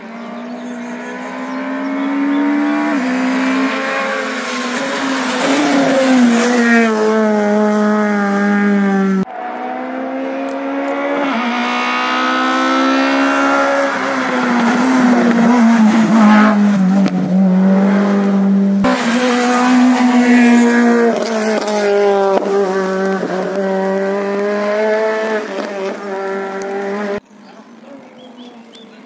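Rally cars passing at racing speed on a wet road, engines running hard with the engine note rising and dropping through gear changes. Several separate passes follow one another, broken by sudden cuts.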